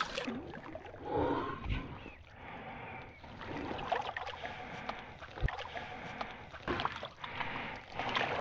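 Shallow river water splashing and sloshing as a pike is released by hand and swims off, with several irregular swishes. Near the end a hand swishes in the water.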